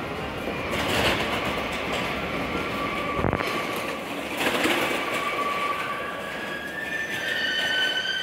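Nagano Electric Railway 2100 series electric train (ex-JR East 253 series Narita Express) running slowly into an underground terminal platform, its steady running noise echoing in the enclosed station. There is a single knock about three seconds in. From about seven seconds in, a high squeal of several tones sets in and grows as the train brakes toward its stop.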